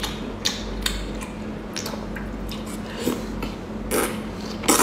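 Close-miked chewing and wet mouth clicks of someone eating grilled squid, irregular sharp smacks over a steady low hum, with a louder burst of noise near the end.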